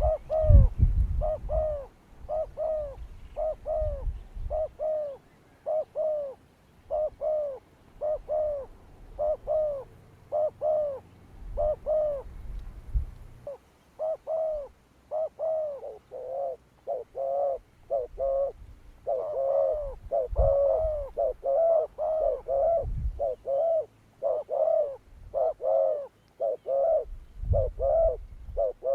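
Dove cooing over and over in an even rhythm of arched, hollow notes, about two a second, with a few low thumps mixed in.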